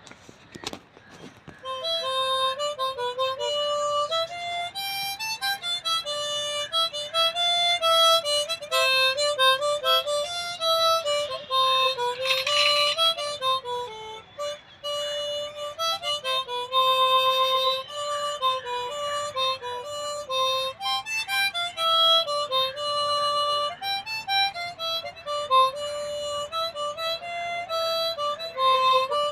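Harmonica played solo, a melody of held and stepping single notes with a reedy tone, starting about two seconds in after a few handling clicks.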